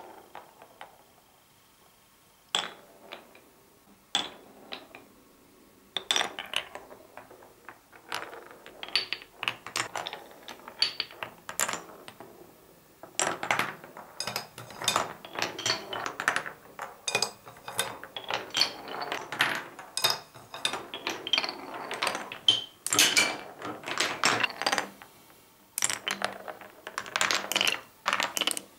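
Marbles rolling through the grooved beech-wood channels of a cuboro marble run, dropping through shafts and clacking against the wooden blocks and each other. A few single clicks come first, then from about six seconds in a busy, irregular patter of knocks and rattles.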